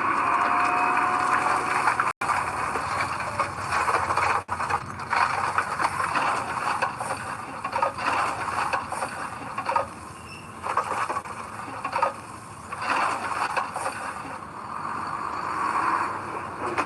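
Heavy earthmoving machinery working loose soil: a rough scraping noise that swells and fades repeatedly, with two brief breaks near the start.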